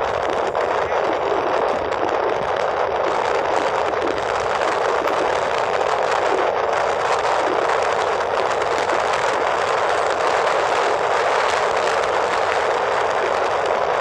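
Wind rushing over the microphone of a handlebar-mounted camera on a road bike moving at speed, a loud steady rush with no breaks.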